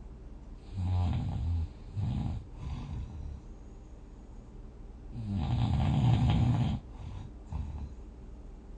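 A dozing person snoring irregularly. There are a few short snores in the first three seconds, then one long, loud snore about five seconds in, and a weaker one after it.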